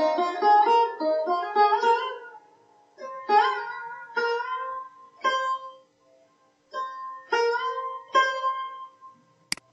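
A music track previewing from the YouTube audio library, played on a plucked string instrument such as a guitar: a quick run of notes, then single plucked chords about a second apart. A sharp click near the end, and the music stops.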